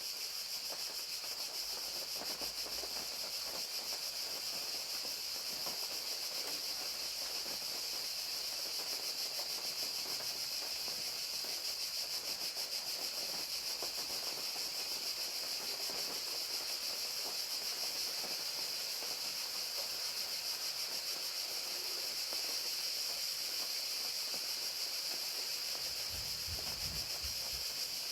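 Crickets trilling in a steady, continuous chorus over the even hiss of falling rain, with a brief faint low rumble near the end.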